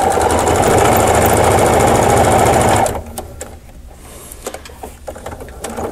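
Electric sewing machine stitching steadily at speed, then stopping suddenly about three seconds in; a few light clicks follow.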